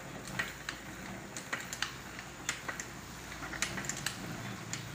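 Home elliptical cross-trainer in use, its moving parts giving light, irregular clicks and ticks as the pedals and handles swing.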